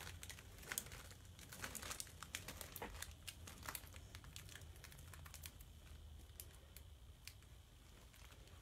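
Faint crinkling and small scattered clicks of a plastic mesh chalk transfer sheet being peeled slowly off window glass.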